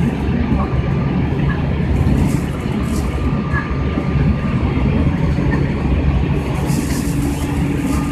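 Cabin running noise of a JR East E351 series limited express motor car travelling at speed. A steady low rumble of wheels on rail and car body, with a faint steady high tone over it.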